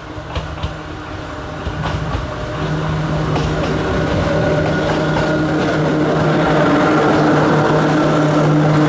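Hakone Tozan Railway electric train approaching on the mountain line: a steady motor hum at one unchanging pitch sets in a couple of seconds in and grows louder as the train draws close. A few sharp clicks come in the first two seconds.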